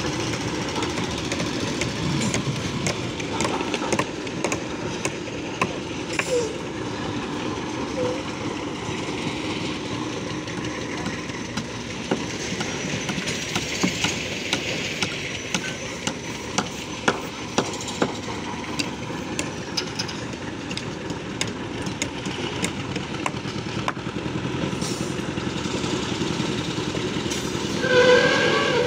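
Construction-site machinery running as a steady drone, with many short, sharp knocks and clanks at irregular intervals.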